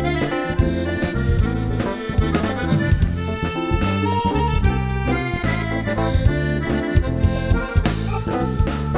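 Live ensemble playing an Abkhaz folk melody, with accordion lead over bass and a steady drum beat.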